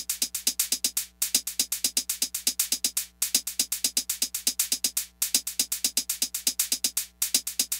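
Background electronic music: a fast, steady drum-machine beat of crisp ticking hits, about eight a second, breaking off briefly every two seconds.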